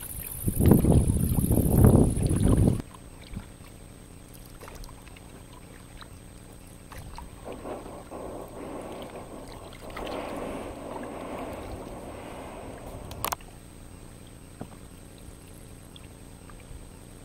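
Paddle strokes dipping and splashing in calm river water alongside an inflatable kayak, soft and uneven in the middle of the stretch. For the first three seconds a loud low rumble covers everything. A single sharp click comes about two-thirds of the way through.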